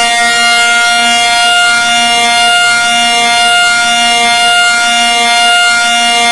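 Civil defence siren holding a loud, steady wail at one pitch, with a faint low pulsing under it about once a second.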